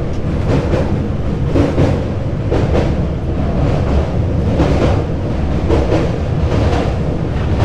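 Background music with a heavy drum beat, over the steady low rumble of a moving train.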